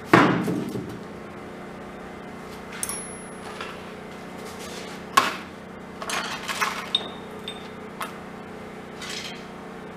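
Steel ammo can and metal parts being handled on a steel workbench: a loud metallic clank that rings for about a second at the start, then scattered sharp clinks and knocks, over a steady low hum.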